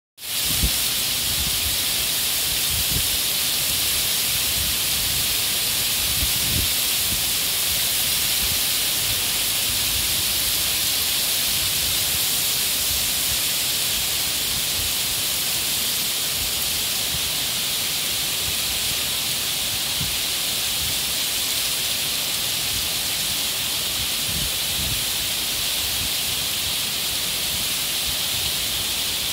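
Very heavy tropical downpour: a dense, steady hiss of rain. A couple of brief low rumbles come through about a fifth of the way in and again near the end.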